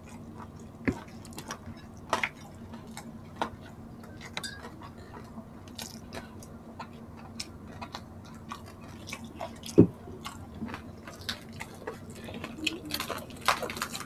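Close-up chewing and mouth clicks of two people eating pancit and crispy pork, with a faint steady hum underneath. A single sharp knock comes about ten seconds in, and near the end a quick run of crackles as the crispy pata skin is pulled apart by hand.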